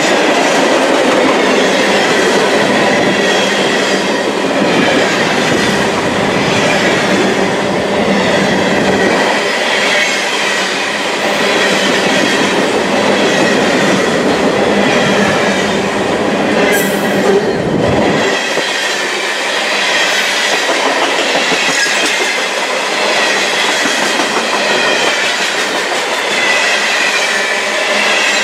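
Freight cars loaded with containers rolling past close by, a steady rush and rumble of steel wheels on the rails, with a faint thin high ringing from the wheels.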